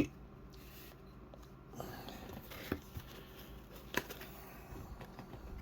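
Faint rustling and two light taps of hard plastic figure accessories being handled, the clearer tap about four seconds in.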